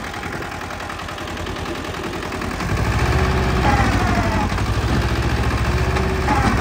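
Small turbocharged tractor diesel engine running. About two and a half seconds in it is opened up and grows markedly louder, with a heavier low beat, as it works against the load of the harrow. Brief falling whines sound over it twice.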